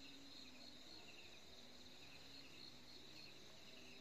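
Faint night chorus of crickets and other insects, a steady pulsing high chirp, with a faint low tone coming and going beneath it.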